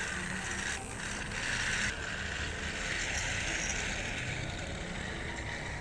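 Battery-powered toy train's small motor and plastic gears whirring steadily.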